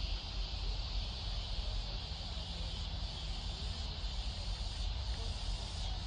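Steady, unbroken high-pitched chorus of summer insects over a low, fluctuating rumble of wind on the microphone.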